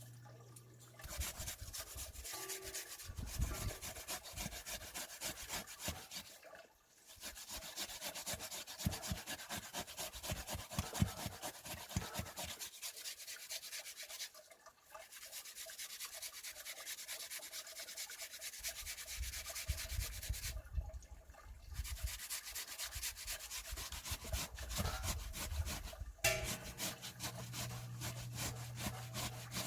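Steady gritty rubbing and scrubbing, many quick strokes run together, pausing briefly three times.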